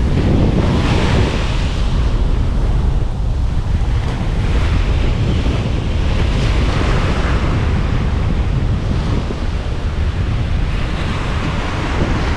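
Strong wind buffeting the microphone with a heavy low rumble, over the rush of surf breaking and washing up the beach in slow swells.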